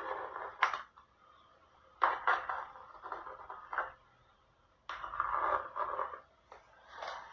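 Kitchen handling noise: four or five short bursts of scraping and knocking, with sharp starts and quiet gaps between them.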